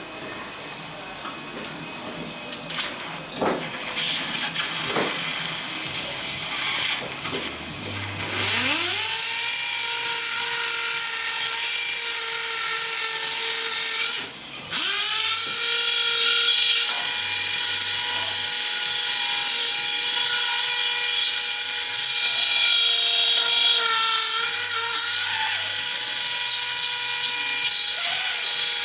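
Surgical oscillating bone saw cutting through a dog's skull around a tumour: after a few scattered clicks and knocks, it spins up about eight seconds in to a steady high whine with a hiss. It cuts out briefly about halfway, starts again, and its pitch dips slightly now and then as it bites into the bone.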